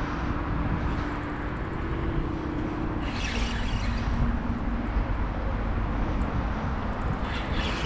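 Road traffic crossing a bridge: a steady rumble of car engines and tyres, with a low engine hum that fades about three seconds in and comes back briefly.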